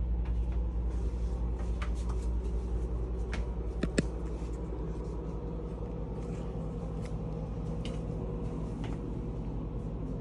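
A steady low machine hum, with scattered light clicks and knocks and one sharper click about four seconds in.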